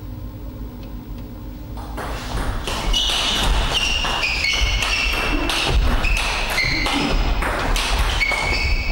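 Table tennis rally: quick sharp clicks of the celluloid ball off the bats and table, mixed with short high squeaks of the players' shoes on the rubber sports floor, starting about two to three seconds in.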